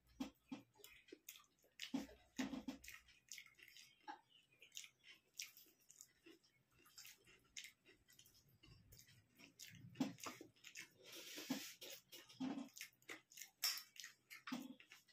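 Faint, close-up eating sounds from two people chewing rice meals eaten by hand: irregular wet mouth smacks and soft clicks.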